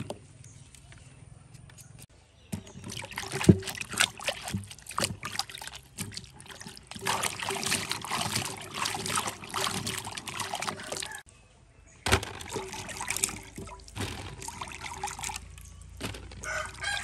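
Water splashing and sloshing as hands scrub small round eggplants and cucumbers in a basin of water, in two long stretches with a short pause between, with sharp knocks as the vegetables hit each other.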